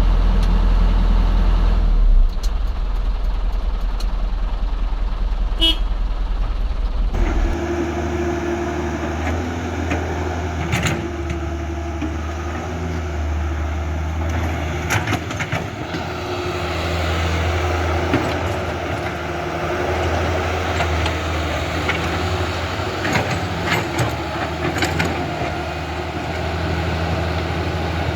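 Steady low engine drone of heavy machinery running, its pitch stepping at about two seconds and again at about seven seconds, with a few sharp clicks scattered through it.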